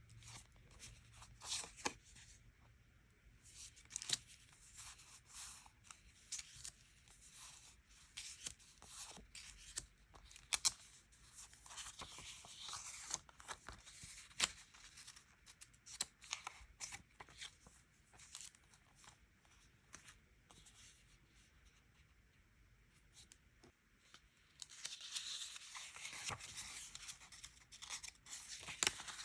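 Quiet desk-journaling sounds: stickers and paper being peeled, handled and pressed onto a diary page, with scattered small clicks and taps and a denser stretch of paper rustling near the end.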